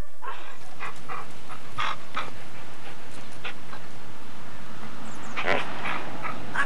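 Small dogs barking: short, scattered barks, with a cluster of louder ones about five and a half seconds in.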